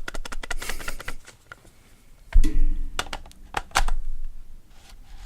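Clicks and knocks of a camera lens being handled and fitted onto a Canon EOS 800D's lens mount: a quick run of small clicks at first, then a few sharper separate clicks and a knock.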